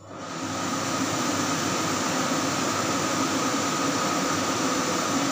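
Kitchen chimney's blower fan switching on. The rushing air rises to full speed within about half a second, then runs steadily with a thin, steady whine.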